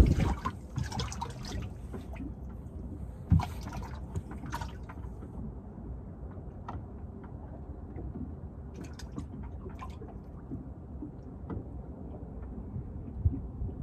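Water lapping and sloshing against a bass boat's hull, with a few light knocks scattered through.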